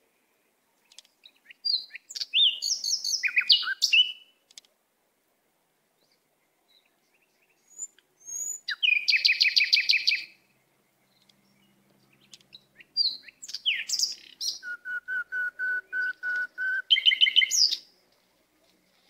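Small songbirds singing in three bursts of quick chirps, whistles and trills. The first comes about two seconds in, a fast trill follows around nine seconds in, and from about thirteen seconds there is a varied run ending in a string of evenly spaced whistled notes and a last trill.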